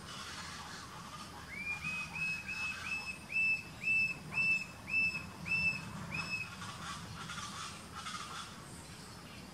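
Coppery-chested Jacamar calling: a series of about a dozen high, clear whistled notes, each rising briefly and then held, coming a little slower toward the end.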